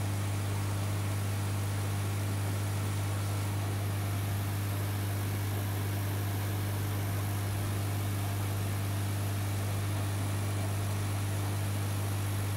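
Aquarium pump equipment humming steadily at one low pitch, with fainter overtones and an even hiss over it.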